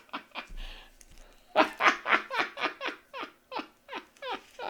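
A man laughing in a run of short bursts, about four a second, fading toward the end. A short soft rustle comes just before the laughter.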